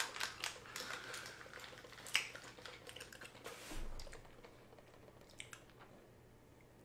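Rustling and clicks of over-ear headphones being handled and put on, with a few faint clicks near the end.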